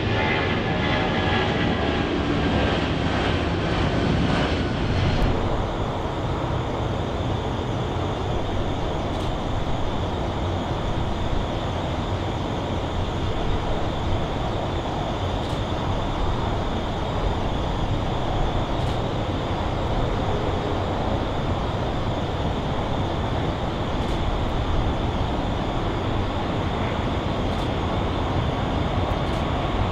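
Airliner jet engines: for the first few seconds a climbing Boeing 757 passes with a whine that falls in pitch. Then comes the steady roar of a Boeing 777-300ER's GE90 engines at takeoff thrust as it rolls down the runway, with a whine rising near the end as it rotates.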